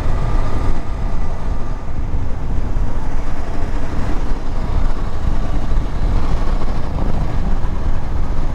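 KTM 250 Adventure motorcycle's single-cylinder engine running at steady road speed, with heavy wind rush buffeting the microphone.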